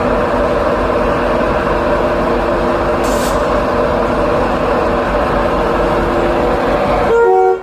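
A train running loud and close alongside a station platform: a steady rush of noise with several held machine tones under it. Near the end a brief pitched tone rises out of it, then the sound cuts off suddenly.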